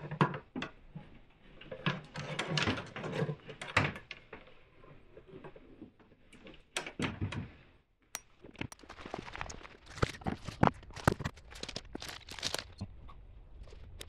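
Irregular clicks, knocks and rustles of electrical cable being handled and fed by hand at a wall box, with a near-silent pause about eight seconds in.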